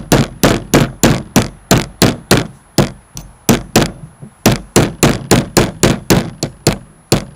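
Small hammer rapidly tapping a 3/32 pin punch, driving a pin through an SKS trigger housing resting on a 2x4. Sharp metallic taps, about three a second, with two brief pauses midway.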